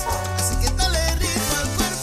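Upbeat salsa-style Latin music: the show's transition bumper going into a commercial break.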